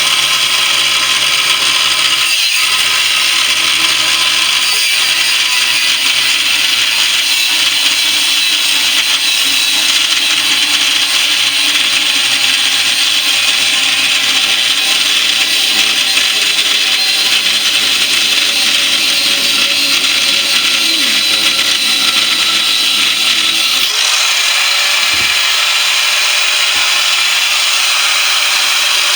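Power tool running steadily under load, cutting into the steel casing of a central air conditioner compressor.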